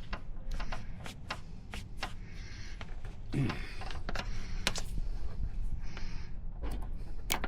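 Scattered sharp plastic clicks and knocks with short rustles from hand work on an MC4 solar-panel connector as it is fitted together.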